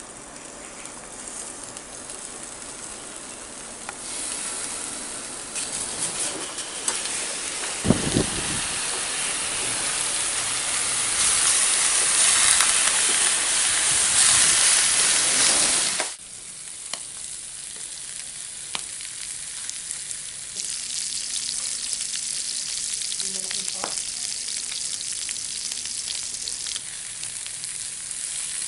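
Pork belly chunks sizzling as they fry in their own rendering fat in a nonstick pan, with no oil added. The sizzle swells to its loudest past the middle, with a short low knock about eight seconds in, then cuts off abruptly and comes back quieter and higher.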